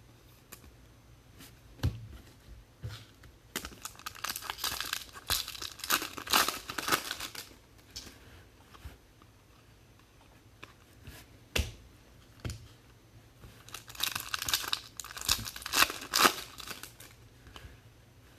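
Foil trading-card pack wrappers being torn open and crinkled, in two stretches of a few seconds each, with a few light knocks in between.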